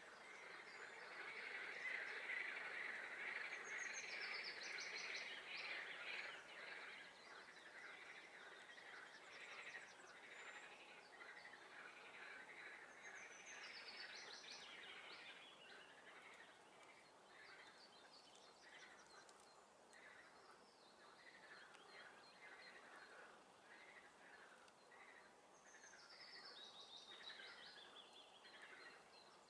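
Frogs calling in a dense swamp chorus of many short, pulsed calls, with a songbird's short falling song phrase heard above it three times, roughly every twelve seconds.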